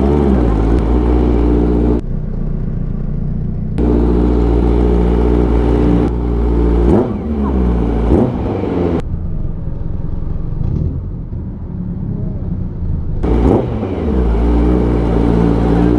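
Kawasaki Ninja 1000's inline-four engine running as the bike is ridden, with a few brief rev changes where the pitch sweeps up and down.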